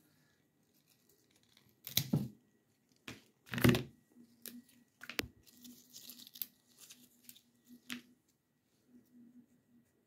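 Fresh rose being trimmed by hand: sharp tearing and snapping about two and four seconds in, the second the loudest, a single crisp snap about a second later, then lighter rustling and crackling of the stem and leaves.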